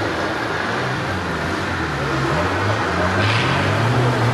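Kirovets K-700 tractor's diesel engine working under load as it drives through a muddy water pit. Its pitch wavers up and down with the throttle.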